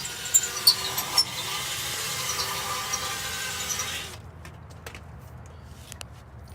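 A power tool runs steadily with a faint whine for about four seconds, then stops suddenly, followed by a few light clicks and taps of tool work on the exhaust.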